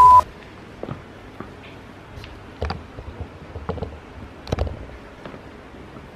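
A brief steady beep right at the start, then about half a dozen soft, irregular taps and knocks over a faint hiss: Balenciaga Triple S clear-sole sneakers stepping and shifting on a marble tile floor.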